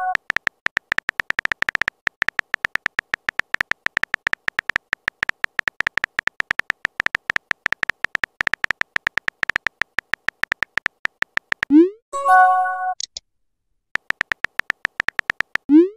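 Simulated phone-keyboard typing clicks from a texting-story app, a rapid even patter of about ten taps a second. The typing stops after about twelve seconds and gives way to a short rising swoop and a brief multi-tone chat chime. After a second's pause the typing clicks start again, and another swoop begins right at the end.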